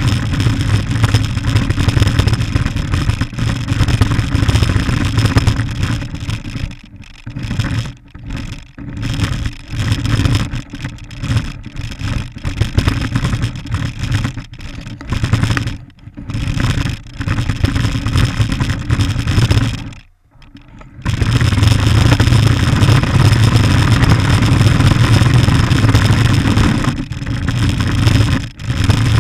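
Radio-controlled car running: a steady mechanical noise from its motor and wheels on the ground. It breaks up into short stops and starts in the middle, pauses briefly about twenty seconds in, then runs steadily again.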